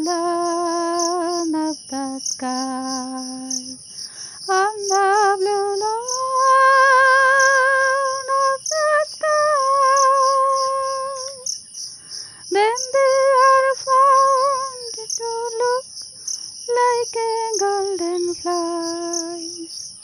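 A voice humming a slow, wordless melody in long held notes with vibrato, with steady high-pitched cricket chirping throughout.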